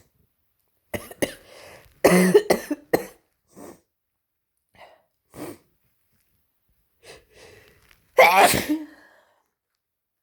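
A person with a head cold sneezing again and again, a run of separate sneezes with smaller ones between. The loudest come as a quick cluster about two seconds in and a long drawn-out 'achoo' about eight seconds in.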